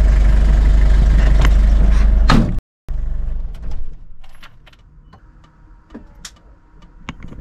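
Vehicle driving noise: a steady low engine and road rumble that cuts off abruptly about two and a half seconds in. After a brief silence a weaker rumble returns and fades out about four seconds in, leaving scattered small clicks and knocks.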